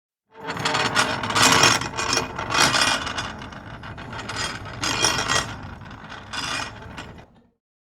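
A mechanism rattling and grinding for about seven seconds, with several louder surges, then stopping.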